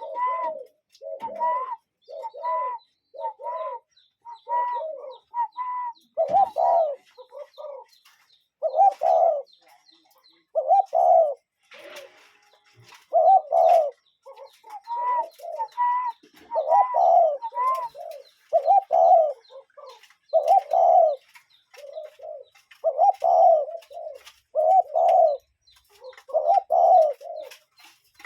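Cuckoo calling over and over, a clear two-note hooting "cu-coo" repeated every second or two. In the first few seconds, and again about halfway through, higher hooting notes are mixed in among the calls.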